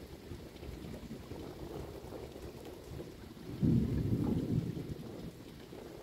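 Thunder rumbling low, with a sudden louder peal about three and a half seconds in that rolls away over the next two seconds.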